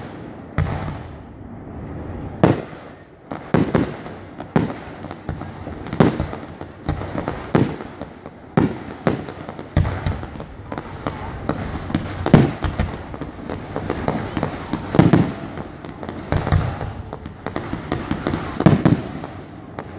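Aerial fireworks shells bursting in quick succession, a loud bang about every second, with dense crackling and smaller pops between them.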